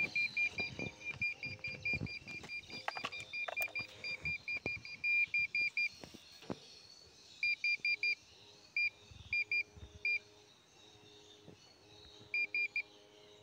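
Handheld satellite finder meter beeping rapidly, about four to five short high beeps a second, as the signal tone for the dish it is tuning. As the LNB is turned, the steady beeping breaks up about halfway through into short groups of beeps with gaps, following the changing signal, with a few handling clicks.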